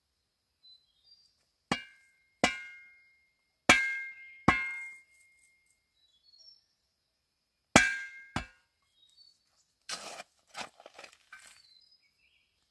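Sharp, ringing strikes of a tool hitting wood or bamboo, coming in three pairs, then a short run of lighter clattering knocks near the end. Faint bird chirps sound between the strikes.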